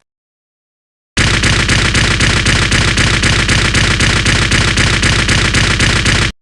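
Mobile Suit Gundam rapid-fire gun sound effect: a fast, even burst of shots, about five a second, starting about a second in and cutting off suddenly near the end.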